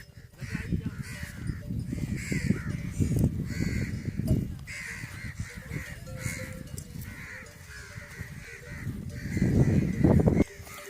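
Crows cawing over and over, with a low uneven rumble underneath that swells about three seconds in and again near the end.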